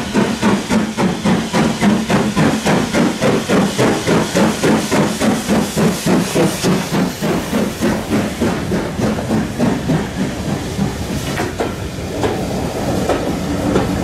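BR Standard Class 4 2-6-0 steam locomotive 76079 working steam as it runs past, its two-cylinder exhaust beating about four times a second. The beats fade about eight to ten seconds in as the engine goes by, leaving the coaches rolling past with clicks over the rail joints.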